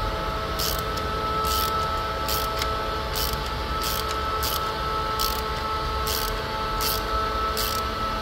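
A hand ratchet clicking in short bursts on each back-stroke, about every 0.7 s, as the frame slider bolt on a Honda CBR650R's engine mount is tightened. Under it runs a steady hum with several pitched tones, which stops abruptly at the end.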